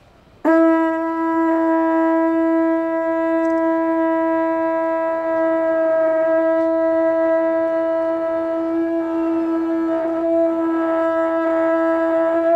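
Conch shell blown in one long, steady blast, a single held note that starts about half a second in and runs unbroken, sustained as long as the blower can for a longest-blast attempt.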